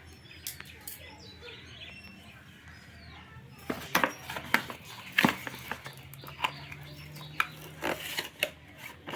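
A delivery package being opened by hand: handling noise with sharp crackles and clicks of packaging, starting about four seconds in after a quiet stretch.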